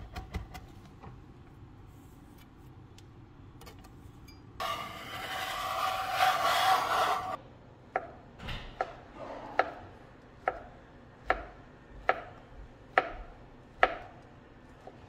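Chef's knife cutting a block of tempeh on a plastic cutting board: about nine slow, evenly spaced cuts, each ending in a sharp knock on the board. Shortly before the cuts begin there are about three seconds of loud rustling and scraping.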